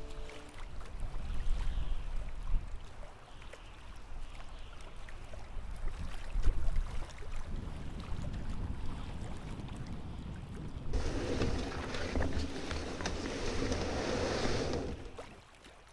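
Low, gusty wind rumble on the microphone with scattered thumps while a canoe is carried over a portage. About eleven seconds in, a loud rustling, scraping rush of brush against the canoe hull starts and runs about four seconds, then stops suddenly.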